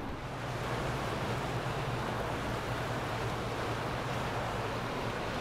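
Motor yacht passing close by: a steady low engine drone with the rush of its bow wake and hull wash.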